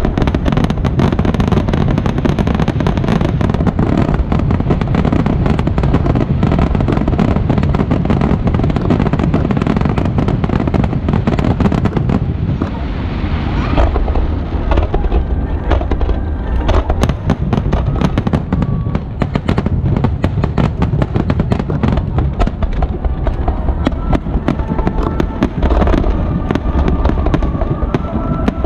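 Aerial firework shells bursting in a rapid, continuous barrage: many overlapping loud bangs and deep booms, with a slight lull about halfway through.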